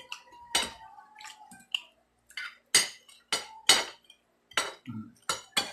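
Metal spoons and forks clinking and scraping against ceramic plates while eating: a string of sharp, irregular clinks, one leaving a brief ringing tone.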